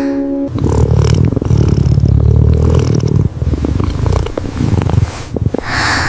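Cat purring loudly close to the microphone, a fast low rumble in long stretches with short breaks, starting about half a second in as a musical tone fades out. A brief breathy sound comes near the end.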